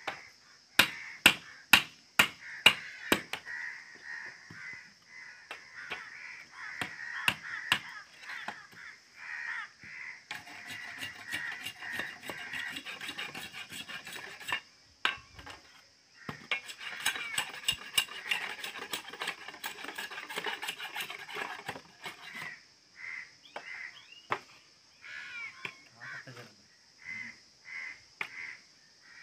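A billhook knife chopping at a wooden stick, a quick run of sharp knocks, then long stretches of scraping as the blade shaves the stick. Crows caw repeatedly, most plainly in the last several seconds.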